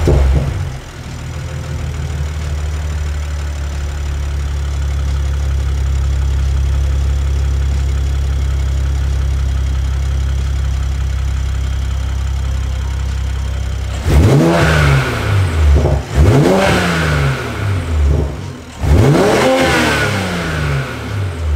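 2020 Toyota GR Supra engine fitted with an MST cold-air intake, just started and settling from its start-up flare into a steady idle, then revved in three blips over the last several seconds. The exhaust is really loud.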